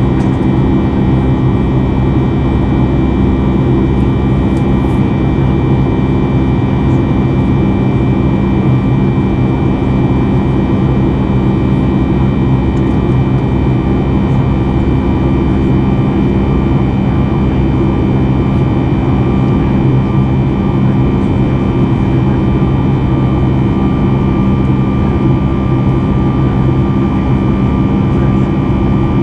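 Cabin noise of a Boeing 737 MAX 8 in flight, heard at a window seat by the engine. Its CFM LEAP-1B turbofan gives a steady drone with rushing airflow and a few steady whining tones layered over it.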